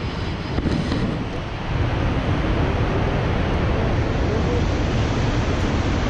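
Steady roar of Shoshone Falls, the Snake River's waterfall, a continuous rushing noise that grows louder a little under two seconds in.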